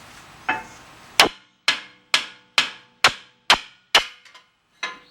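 Hammer blows knocking a stuck part out of a car's brake assembly: about eight sharp metal-on-metal strikes, roughly two a second, each ringing briefly, fading to a couple of lighter taps near the end.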